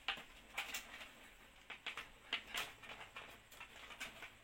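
Light, irregular clicks and taps of small plastic fan-cable connectors being handled and plugged together, about eight short ticks spread unevenly over a few seconds.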